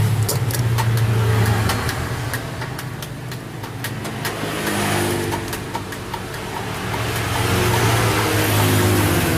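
Small generator engine running steadily. Its sound swells in the first couple of seconds, eases back mid-way, and rises again near the end.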